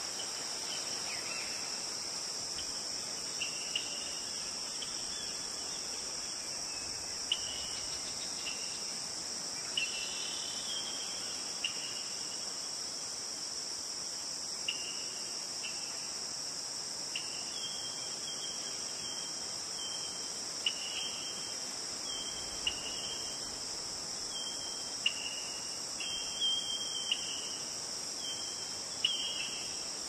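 Steady high-pitched insect chorus with short bird chirps repeating over it every second or so, more often in the second half.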